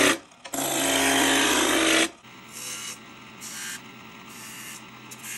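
Turning tool cutting a spinning wood blank on a lathe: loud rasping shaving noise over the lathe's steady hum, with a brief break, cutting off suddenly about two seconds in. Then several short, quieter scratching strokes, as of a pencil marking the turned leg.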